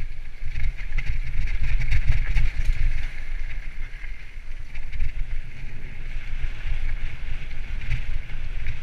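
Mountain bike descending a rough gravel trail: wind rumbling on the bike-mounted camera's microphone, with the tyres crunching over loose stones and the bike rattling over bumps.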